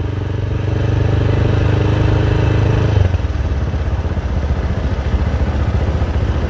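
Small motorcycle engine running at a steady low road speed, with wind and road noise. A steady engine note holds for about three seconds, then gives way to a rougher, noisier rumble.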